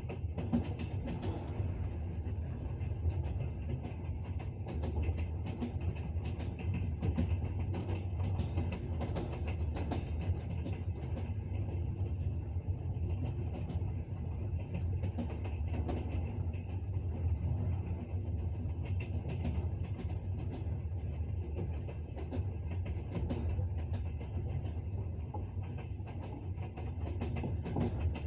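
Train wheels clattering over rail joints, a steady low rumble under irregular clicks and knocks.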